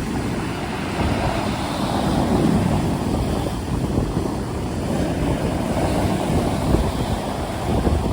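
Rough sea waves breaking under a storm wind: a dense, steady low rushing noise that swells and eases a little.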